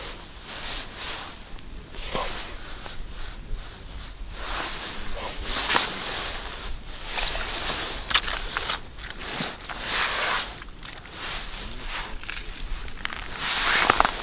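Rustling of a padded winter jacket and handling noise as an ice angler pulls a fish up through the hole hand over hand, with frequent sharp scuffs that grow busier about halfway through.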